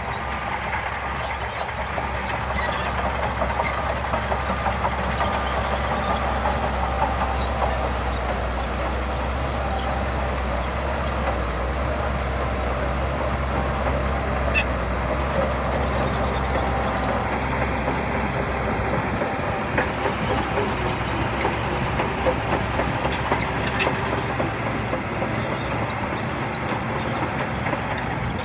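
Diesel engine of heavy earthmoving machinery running steadily, with a few sharp knocks; its deepest rumble drops away about two-thirds of the way through.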